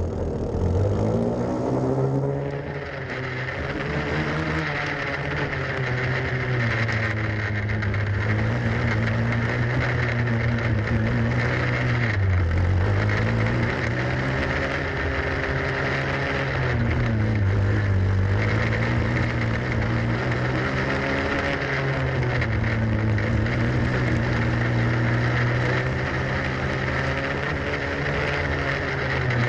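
Racing grass kart's small engine running hard, heard on board, its pitch dipping and climbing again several times with the throttle.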